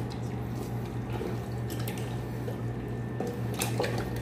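Hands squishing and mixing raw chicken pieces in a liquid marinade in a steel pot: wet squelching with scattered small clicks, over a steady low hum.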